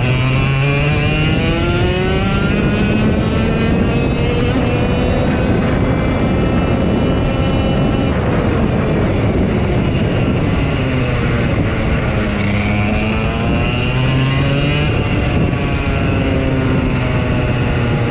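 Several race car engines running hard around a short oval. Their pitch climbs steadily for several seconds, then drops off, then climbs again, over and over.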